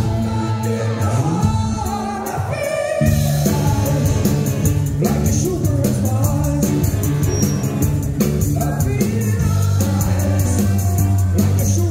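Live rock band music: two saxophones playing over electric guitars, bass guitar and drums. The first three seconds are a sparser break with a sliding bass line, and the full band comes back in about three seconds in.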